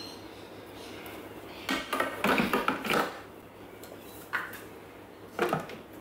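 Stainless-steel Thermomix mixing bowl set back into the machine's base with a clatter of metal knocks, followed by a couple of lighter knocks as the spatula is put down and the lid handled.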